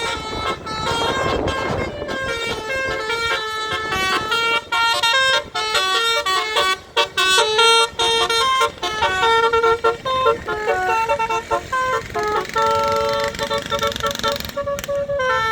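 A bus's basuri musical horn playing a melody, one sustained horn note after another in quick steps, over the noise of traffic.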